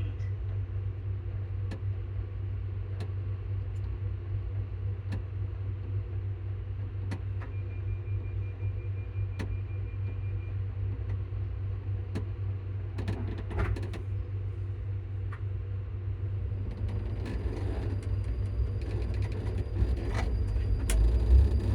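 ScotRail Class 334 electric multiple unit heard from on board: a steady low rumble of the train running, with scattered sharp clicks, and a high steady whine from the traction equipment that comes in about 17 seconds in and grows toward the end.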